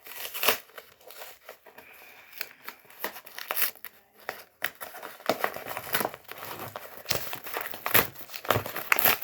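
Packaging being handled and torn open: irregular crinkling, rustling and tearing, sparse at first and busier from about halfway through.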